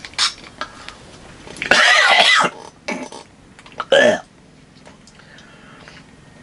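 Pump-spray liquid candy bottle: a few light pump clicks, then one longer hissing spritz about two seconds in. A short vocal grunt, falling in pitch, follows about four seconds in.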